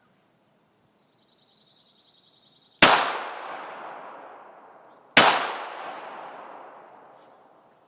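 Two shots from a Taurus PT24/7 .45 ACP pistol, about two and a half seconds apart, each sharp crack followed by a long echo that dies away over about two seconds.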